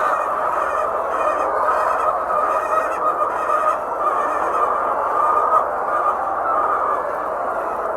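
A large flock of laying hens clucking and calling together in a steady, unbroken din.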